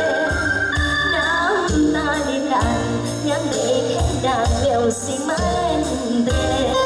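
A woman sings a melody with a wobbling vibrato into a microphone over amplified backing music with a steady bass beat and ticking cymbals.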